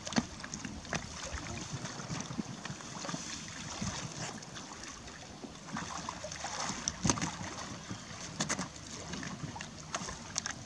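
Wind buffeting the microphone over lapping water, with scattered small splashes and knocks as a man wades and pushes an inflatable boat out from the shore. The boat's air-prop motor is not running.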